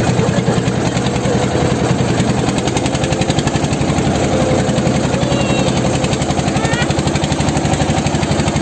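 An engine running steadily, with a rapid, even pulse.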